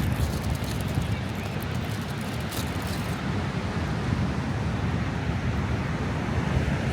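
Steady wind buffeting the microphone: a continuous low rumble and hiss with no distinct events.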